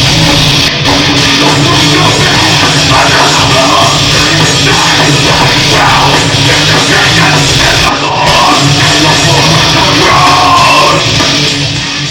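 Live heavy rock band playing loud, distorted electric guitars, bass and drums, with shouted vocals over it from about three seconds in.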